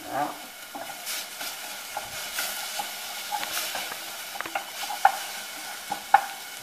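Wooden spoon stirring chopped shallots, garlic, ginger and chili frying in a stainless steel saucepan: a soft sizzle under the scraping, with the spoon knocking the side of the pan a few times, sharpest about five and six seconds in.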